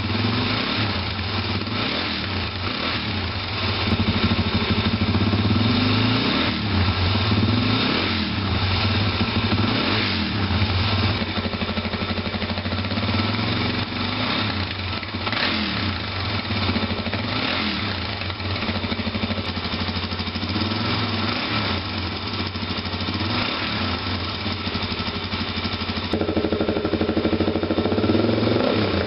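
Suzuki DR-Z400SM single-cylinder four-stroke engine running through its exhaust at idle, with several short throttle blips raising the pitch and loudness.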